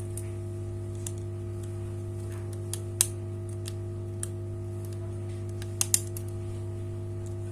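Light clicks and taps of small phone parts and tools being handled while a smartphone is taken apart, the sharpest about three seconds in and two close together near six seconds. A steady electrical hum runs underneath.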